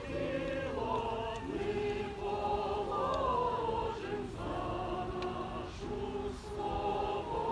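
A small group of women singers, a vocal trio, singing together unaccompanied in slow, held notes that change pitch every half second to a second.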